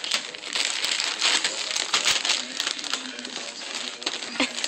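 Thin plastic packaging from a case of water bottles crinkling and rustling as a cat shifts about inside it and a small dog paws at it, a busy crackle full of small snaps.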